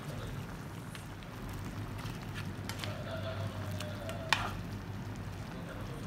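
Shrimp in a thin sauce sizzling and bubbling in a frying pan while being stirred with a plastic spatula, with small clicks and one sharp knock of the spatula against the pan about four seconds in.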